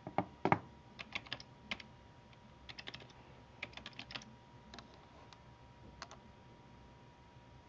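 Computer keyboard being typed on: irregular key presses in short runs, two louder strokes right at the start, stopping about six seconds in.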